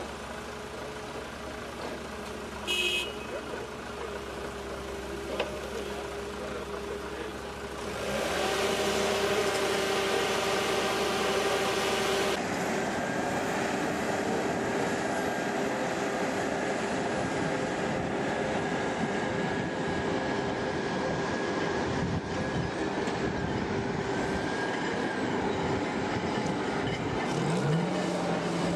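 Diesel engines of cable-logging yarders and a log loader running steadily under load, with a brief high whistle-like tone about three seconds in. The machine noise jumps louder about eight seconds in.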